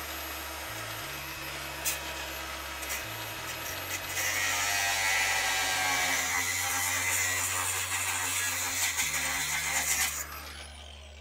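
Cutoff wheel spinning at high speed and cutting into a seized steel exhaust-flange bolt: a steady high whine that turns louder and harsher about four seconds in as the wheel bites. Near the end the tool is let off and the whine falls away as the wheel spins down.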